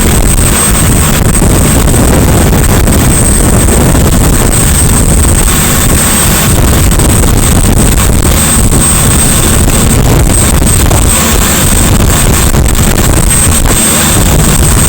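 Motorboat running fast, a loud, steady rush of engine and wind buffeting the microphone, with a thin high whine held throughout.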